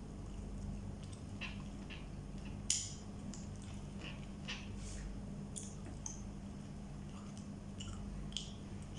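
Fried chicken being pulled apart by hand and chewed: scattered small crackles and clicks, with one sharper click about three seconds in, over a steady low hum.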